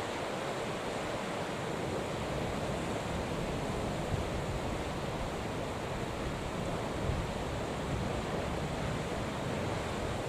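Wind buffeting the microphone over the wash of a rough, whitecapped sea: a steady noise without a break.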